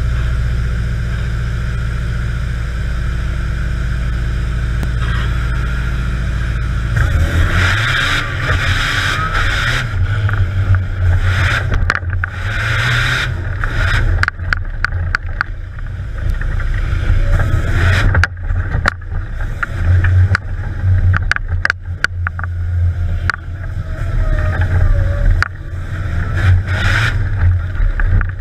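Off-road trial vehicle's engine idling steadily, then from about seven seconds in revving hard and rising and falling as the vehicle drives over rough ground, with repeated sharp knocks and rattles from the chassis and bodywork, heard from inside the open cabin.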